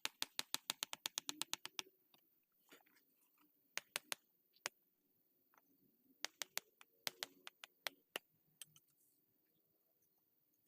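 Rapid runs of sharp clicks, about eight to ten a second, in bursts: one at the start, a few single clicks around the middle, and another run a little later. A faint low hum lies underneath.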